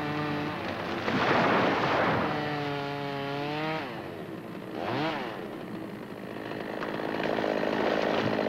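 Two-stroke chainsaw running, its pitch rising and falling as it revs. About a second in there is a loud rushing crash as a felled tree comes down through the snow.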